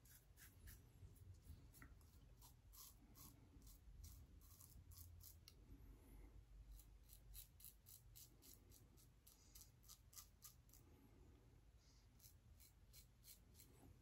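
Faint, quick scraping strokes of a Shave It Shadow aluminium double-edge safety razor with an RK Chromium blade cutting stubble through shaving lather, several short strokes a second at times.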